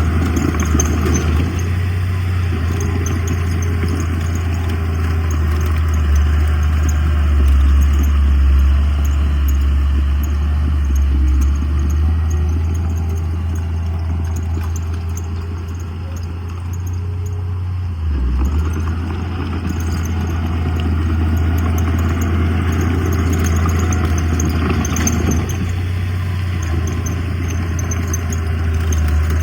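Heavy diesel engine of earthmoving machinery running steadily. It eases off for a few seconds about halfway through, then picks up again.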